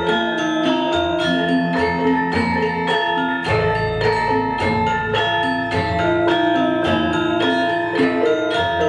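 A Javanese gamelan ensemble playing in Yogyakarta style: dense, interlocking struck notes from metallophones and bonang kettle gongs over regular kendang drum strokes. A deep low stroke rings out about three and a half seconds in and dies away over a couple of seconds.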